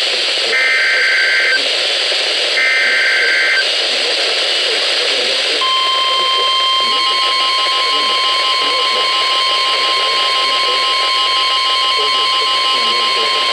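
NOAA Weather Radio alert signals over radio hiss. Two harsh digital SAME data bursts about a second long each, two seconds apart, are followed after a short gap by the steady 1050 Hz warning alarm tone, which begins about five and a half seconds in and holds. Together they signal the start of a new warning broadcast.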